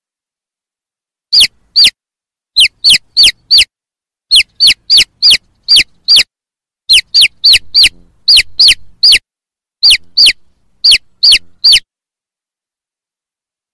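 Chicks peeping: loud, short, high cheeps that each drop sharply in pitch, coming in quick runs of two to seven at about three a second, with silent gaps between the runs.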